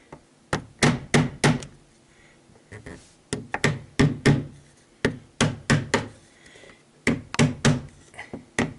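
A hammer tapping a plastic glazing bead (штапик) into a PVC window frame to snap it into place beside the glass. About twenty sharp knocks come in runs of four to six, roughly three a second, with a short pause about two seconds in.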